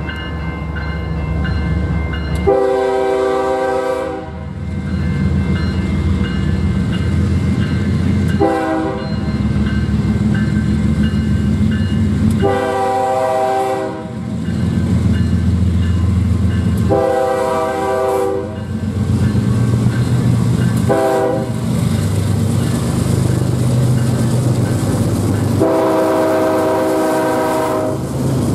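An approaching BNSF diesel freight train sounds its multi-chime air horn, likely a Nathan K5LA, six times about four seconds apart: long blasts mixed with two short toots, the last and longest near the end as the locomotives reach the camera. The locomotives' diesel engines make a low, steady rumble under the horn.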